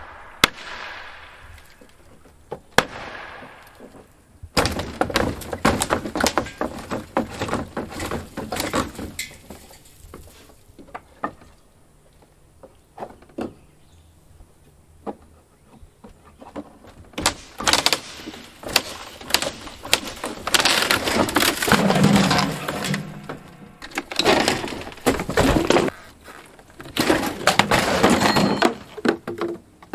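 Roof demolition by hand: old wooden roof framing cracking and breaking, with debris clattering, in two long stretches of dense irregular cracks and scattered single knocks between them.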